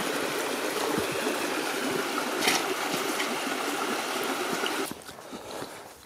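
Small rocky brook babbling and trickling over stones, a steady rush of water that cuts off suddenly about five seconds in.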